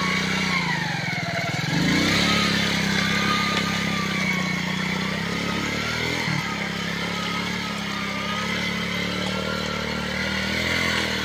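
Small motorcycle engine running under load as it drags a wooden ladder through wet paddy-field mud as a leveller. The revs sag about half a second in, pick back up at about two seconds, then hold fairly steady.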